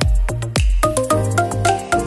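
Background music with a steady low beat about twice a second and short melodic notes over it.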